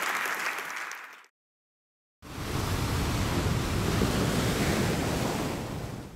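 Audience applause cut off about a second in, then after a moment of silence the rush of ocean surf, swelling and fading over about four seconds.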